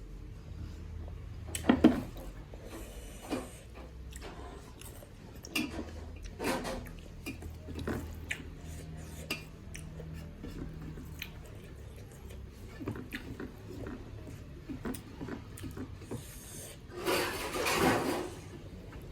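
Eating sounds at a meal: scattered clinks, knocks and scrapes of dishes and utensils against plates and bowls, with a sharp knock about two seconds in and a longer, louder noisy stretch near the end.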